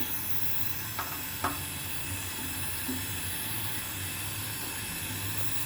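Steady hiss of a gas torch flame (direct fire heater) heating a washing machine's stuck steel shaft, with two light clicks about a second in.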